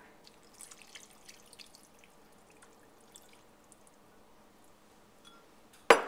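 Water poured from a glass measuring cup into a glass casserole dish, with faint splashing and dripping over the first couple of seconds. Then a single sharp knock near the end.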